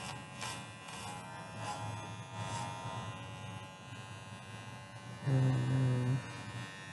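Corded electric dog clippers buzzing steadily as they shave a Shih tzu's coat, with a louder, lower hum for about a second near the end.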